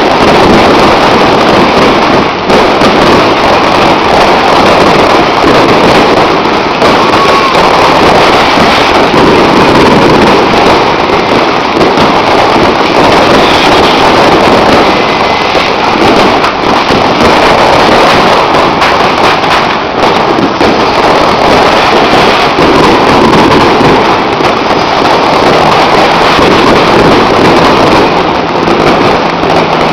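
A dense, unbroken barrage of fireworks and firecrackers going off, very loud and constant, with no gaps between the bangs.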